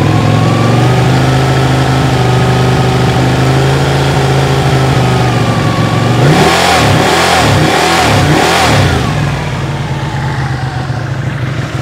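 Ducati Panigale 899's L-twin engine idling while it warms up, then revved with several quick throttle blips a little past the middle before dropping back to idle.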